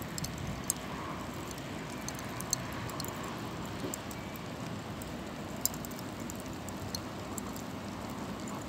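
Pine kindling burning among charcoal in a mangal brazier, giving scattered sharp crackles and pops over a steady background hiss.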